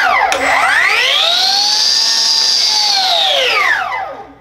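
Milwaukee M18 Fuel 9-inch cut-off saw (2786-20) run with no load: the tail of one run dies away, then the trigger clicks and the brushless motor and blade spin up to a high whine, hold at full speed for about a second, and wind down quickly near the end.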